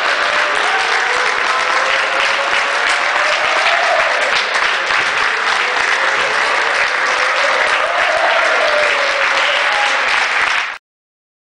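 Crowd in a sports hall applauding steadily, with a drawn-out group cheer whose pitch swells up and falls back every few seconds; the sound cuts off suddenly near the end.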